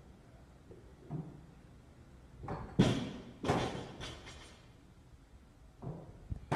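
Several heavy thuds on a gym floor. The loudest comes about three seconds in and is quickly followed by two more; weaker thumps come near the end.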